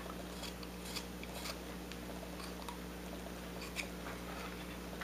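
Carving knife slicing small chips off a piece of wood: a few faint, short scattered cuts and scrapes over a steady low hum.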